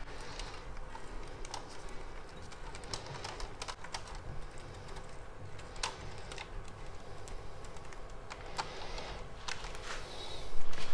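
Faint rustling of baking parchment with small scattered ticks and taps as puff pastry triangles are rolled up by hand on a metal baking tray, with a louder crinkle near the end.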